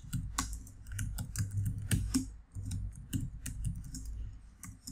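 Typing on a computer keyboard: a steady run of quick key clicks, several a second, with small pauses between bursts.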